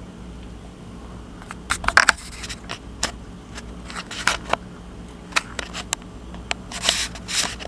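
A series of irregular sharp clicks and knocks, the loudest a cluster about two seconds in and another near the end, over a steady low hum.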